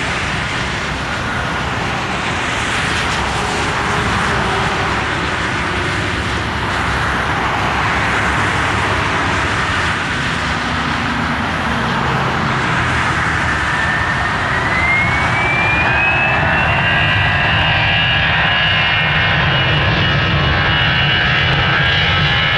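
Airbus A320's CFM56 turbofan engines spooling up for the takeoff roll. A steady jet rumble, with a high whine that rises in pitch a little over halfway through and then holds as the engines reach takeoff power.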